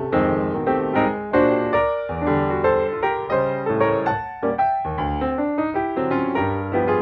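Background piano music: a steady run of quickly struck notes over chords.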